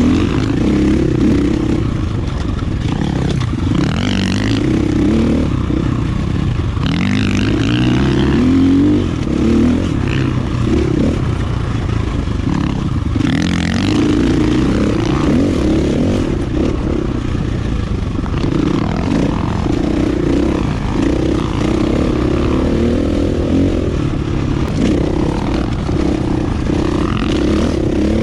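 Single-cylinder four-stroke dirt bike engine (KTM 450 EXC) running under load while riding, its revs rising and falling with the throttle, with a few short rushes of noise along the way.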